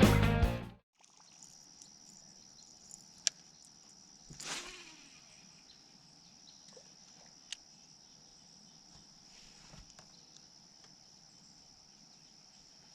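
Crickets trilling steadily at a high pitch after guitar music cuts off in the first second, with a brief swish about four and a half seconds in and a couple of sharp clicks.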